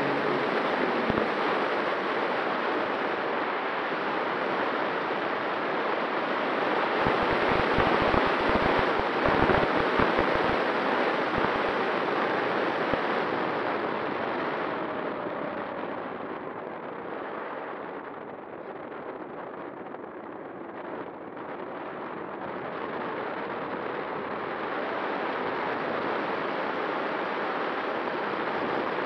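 Airflow rushing over the wing-mounted camera of a Skua FPV model plane in flight, with a faint steady whine from its electric motor and propeller. Rough wind buffets come in about a third of the way through, and the rush eases and dulls past the middle before building again.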